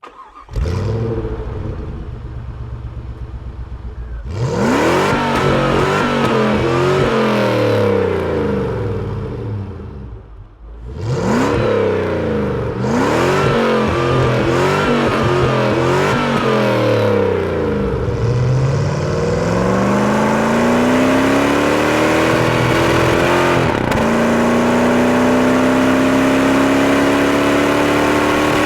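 Jeep Grand Cherokee 4.7-litre V8 through a Magnaflow exhaust, starting up about half a second in and idling briefly. From about four seconds it is revved again and again, each rev rising and falling. In the last third the revs climb slowly and steadily without a break.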